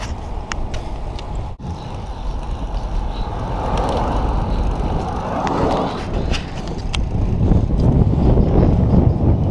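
Wind buffeting the microphone of a camera on a moving road bicycle, mixed with tyre and road rumble and a few small clicks. There is a brief break about a second and a half in, and the wind rumble grows louder over the last couple of seconds.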